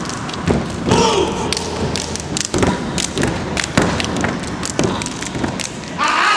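Step team stepping in unison: feet stomping on the stage floor and hands clapping and slapping the body, in a quick run of thuds and smacks.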